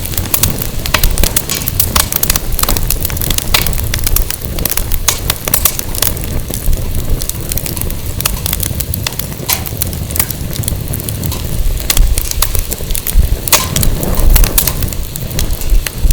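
Firewood burning in a campfire, crackling and popping with many sharp irregular snaps. A low fluctuating rumble of wind on the microphone runs underneath.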